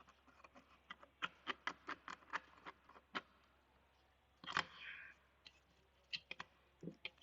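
Faint, sharp clicks and light taps of metal ceiling-fan parts being handled and fitted together as the spring and rotor go into the fan body. There is a quick series of clicks at first, a louder knock with a short ring about halfway, and a few more clicks near the end.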